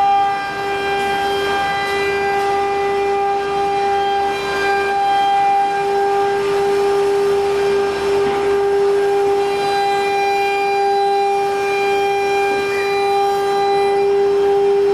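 Auto-feeding CNC wood router running while it unloads the cut panels: a loud, steady whine that holds one pitch throughout.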